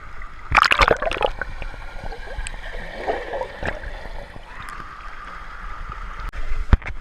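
Water splashing hard about half a second in, then a steady rush of moving water with small splashes and gurgles, and a sharp knock near the end.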